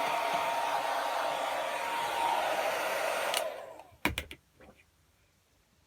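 Handheld hair dryer blowing steadily, a whine over the rush of air, switched off about three and a half seconds in as the fan winds down. A couple of sharp clicks follow about a second later.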